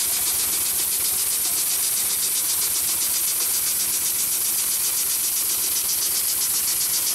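Heavy-duty long-arm triple-feed sewing machine with a roller puller feed running steadily, stitching through thick layered canvas. A high, steady hiss sits over a fast, even stitching rhythm.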